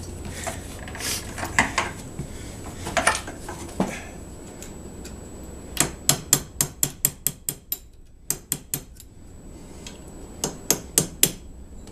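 Hammer striking a steel punch with sharp metallic taps. A few scattered taps come first, then a quick run of about ten blows, roughly five a second, about six seconds in, a few more, and four last blows near the end.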